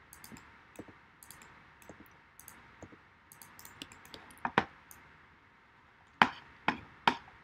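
Light, scattered clicks of a computer mouse and keyboard, with a louder pair about four and a half seconds in and three sharp clicks near the end.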